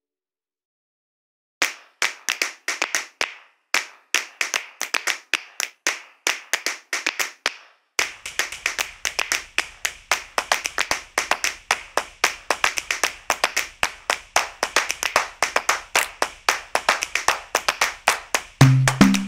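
Hand clapping in a quick rhythm: scattered groups of claps at first, then a steadier, faster run of claps from about eight seconds in. A low bass line comes in near the end.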